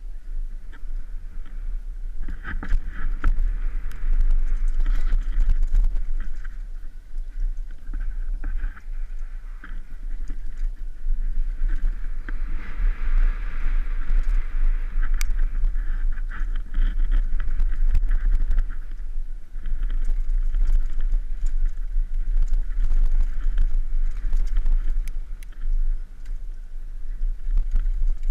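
Mountain bike descending a dirt downhill trail, heard through a helmet-mounted action camera: a steady low wind rumble on the microphone, hissing tyre noise on dirt that swells and fades, and many short rattling knocks from the bike over rough ground.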